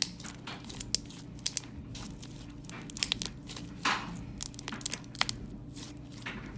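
Thick slime with foam balls being squished and poked by hand, making irregular sticky pops and crackles, with a longer squelch about four seconds in.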